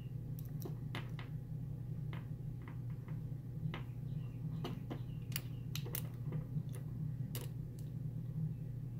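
Lock pick and tension wrench working in the keyway of a Master Lock lockout padlock during single pin picking: light, irregular metallic ticks as the pins are probed and set, over a steady low hum.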